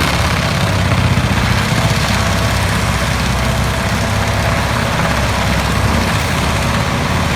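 Heavy forestry machine running steadily, a loud diesel engine rumble under load mixed with a dense mechanical working noise.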